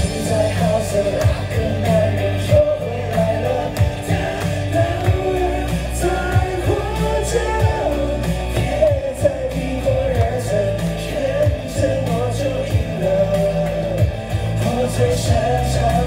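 A pop song over the sound system: a singer's voice over amplified music with a steady beat and bass.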